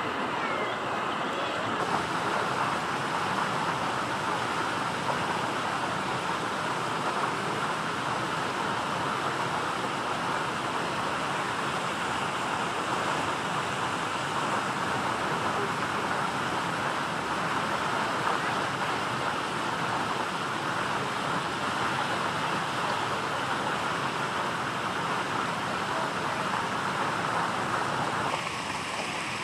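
Steady rushing background noise with no distinct events, changing in tone shortly before the end.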